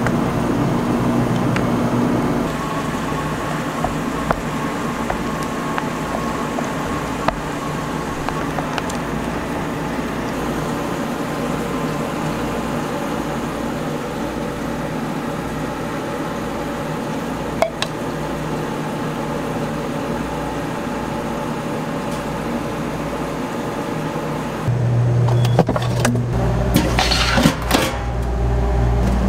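Steady motor hum of gelato-making machinery, with a few light clicks. About 25 seconds in a louder, deeper hum starts, and stainless-steel gelato pans clink and clatter.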